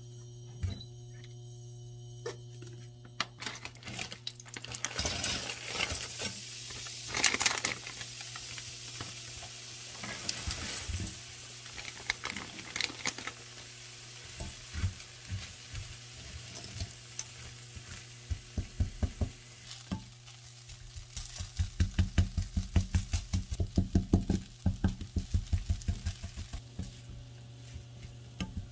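Frozen kimchi fried rice sizzling in a hot nonstick wok, starting a few seconds in, while spatulas stir and scrape it against the pan. Near the end comes a quick, regular run of spatula strokes, about three a second.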